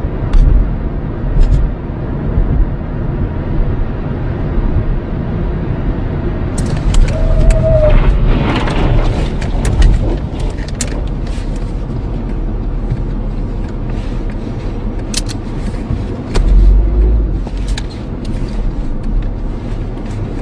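Road and engine rumble heard inside a moving car, with a few heavier low thumps. From about a third of the way in, frequent sharp clicks and knocks sound over the rumble.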